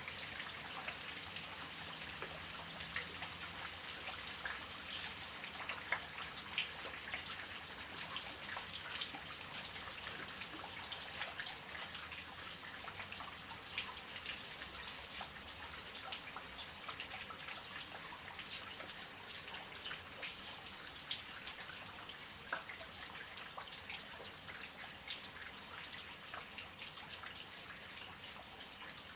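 Soft rain falling steadily, a continuous high hiss dotted with many small drip and drop ticks, with a few louder drops standing out.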